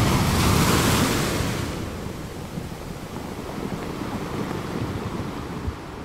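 Sea surf: a wave breaking with a hiss, loudest in the first second and a half, then washing back and fading away.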